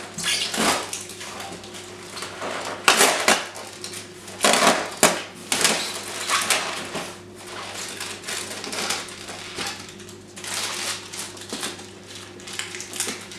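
Hands rummaging through packing in a polystyrene shipping box: irregular rustling and crunching, with a few louder crunches about three and five seconds in.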